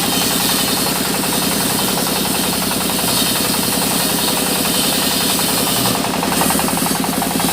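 Sawmill machinery running steadily, with a fast, even engine-like rattle.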